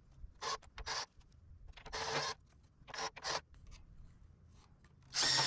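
About five short raspy bursts, each under half a second, with a slightly longer one near the end, as the leveling bolts under an aluminium ladder mill guide are run down to the log with a cordless drill and checked with a level.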